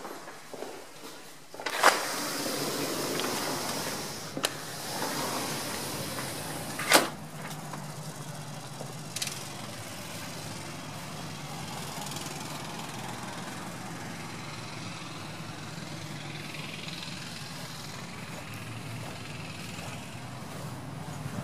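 Sliding glass patio door being opened and shut: a loud clack about two seconds in with the rumble of the panel rolling in its track, and another sharp clack about seven seconds in. After that, a steady low hum of outdoor background noise.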